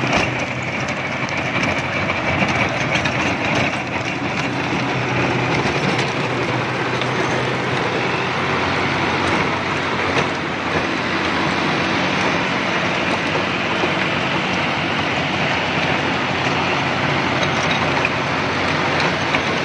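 John Deere 5075E tractor's diesel engine running steadily under load while its PTO-driven rotavator churns soil and chops banana plant debris, a continuous rumble with a clattering churn from the blades.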